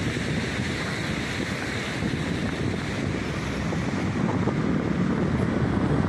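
Steady rushing noise, with wind buffeting the microphone.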